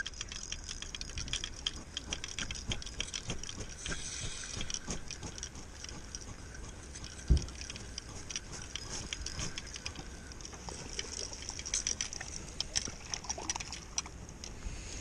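Spinning reel being cranked to reel in line, its gears giving a fast run of light ticks. A single hard thump about seven seconds in.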